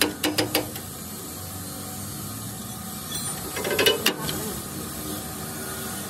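Hand tools working on metal parts: a quick run of sharp clicks at the start, then another cluster of clicks and knocks about four seconds in, over a steady hiss.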